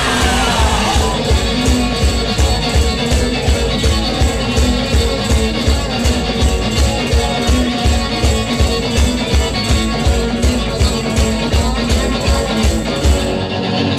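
Live garage rock played loud in a club: electric guitars over a fast, steady beat, recorded from the audience.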